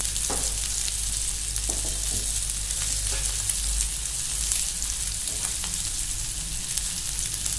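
Masala-coated king fish (seer fish) steaks shallow-frying in oil on a flat tawa over a low flame: a steady sizzle with small scattered crackles.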